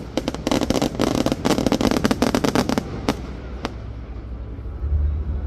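Fireworks crackling: a dense run of rapid pops for the first three seconds or so, then two single cracks, then a low rumble near the end.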